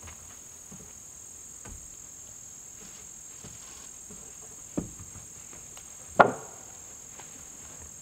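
Two sharp wooden knocks about a second and a half apart, the second much louder, as a wide rough-sawn sheathing board bumps against the timber wall frame while being set in place. A steady high-pitched insect drone runs underneath.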